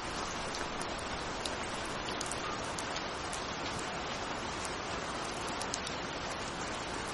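Steady rain: a dense, even hiss with many scattered sharp drop ticks.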